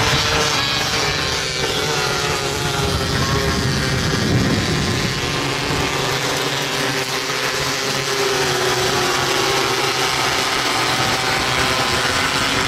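Engines of several winged 270-class micro sprint cars racing, revving and rising and falling in pitch as the cars pass, with a marked pitch sweep about four seconds in.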